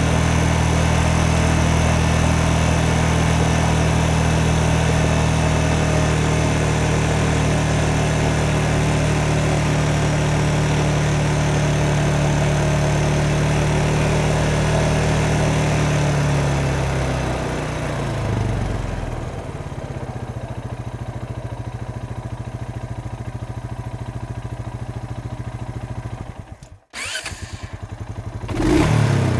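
Motorcycle engine running steadily, then its note drops away about seventeen seconds in to a quieter, lower idle. Near the end the sound cuts out briefly, then comes back with a short rev.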